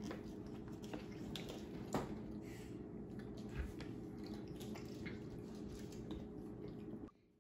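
Quiet room tone: a steady low hum with faint small clicks and soft handling noises, and one sharper tick about two seconds in. The sound cuts out just before the end.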